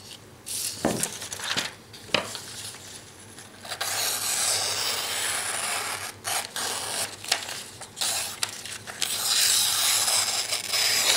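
A couple of knocks as knives are handled on the wooden table, then the sawback blade of a US Air Force survival knife slicing through sheets of paper with a long rasping hiss from about four seconds in: a paper-cutting test of its edge.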